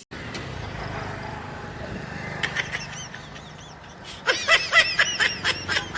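High-pitched laughter: a few short rising-and-falling notes about two and a half seconds in, then a loud, rapid run of 'ha' notes, about four or five a second, over the last two seconds.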